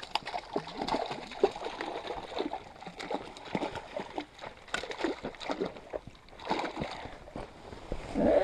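A hooked brook trout splashing and thrashing at the surface in shallow lake water as it is fought in, in irregular sloshes and splashes.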